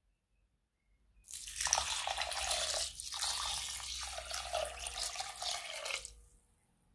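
A stream of water pouring and splashing into a glass bowl of raw white rice, filling it so the rice can soak before cooking. It starts about a second in, breaks briefly near the middle and stops about a second before the end.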